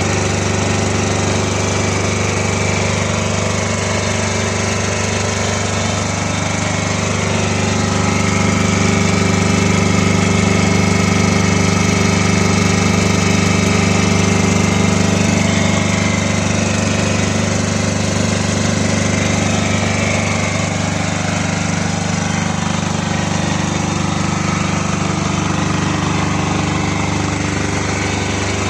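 Lister Petter 5 kVA silent-type diesel generator running steadily close by, a constant diesel drone through its enclosure, a little louder in the middle.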